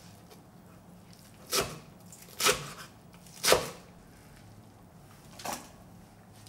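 Knife chopping blanched minari (water dropwort) on a wooden cutting board: three sharp chops about a second apart, then a softer knock near the end.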